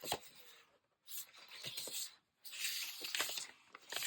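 Paper rustling and sliding as magazine cut-outs and book pages are handled, in short bursts with a few light taps.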